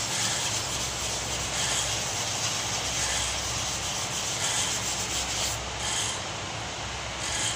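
Sanding block rubbed by hand over body filler on a car's front fender, a steady scraping hiss in repeated strokes about once every second and a half, smoothing the filler down to restore the fender's body line.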